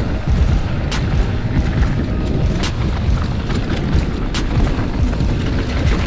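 Wind buffeting the microphone with a steady low rumble, and a mountain bike's tyres rolling over dirt on a fast downhill run. Sharp clacks from the bike come about every second and a half.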